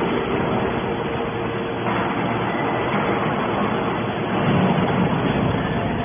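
Hydraulic scrap metal baler running: a steady mechanical din with the hum of its electrically driven hydraulic power unit, which grows louder for a moment about four and a half seconds in.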